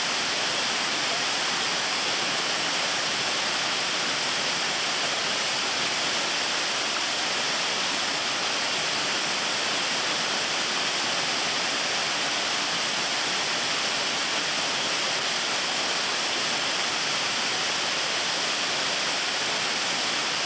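Steady rush of running water from a stream and waterfall.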